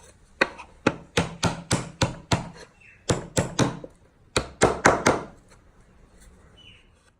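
Repeated sharp knocks on timber, about fourteen blows in three quick runs of three to four a second.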